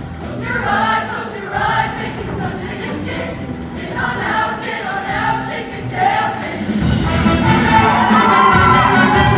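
Show choir singing in unison over its live band. About seven seconds in, the band and voices swell louder, with a heavier bass.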